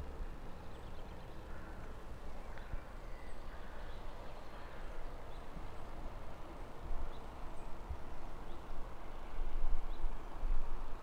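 Low rumble of wind on the microphone, gusting stronger in the second half, with faint high bird chirps now and then.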